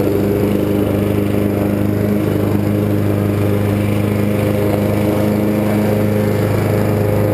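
Honda walk-behind lawn mower's engine running at a steady speed while it is pushed across the grass, mowing.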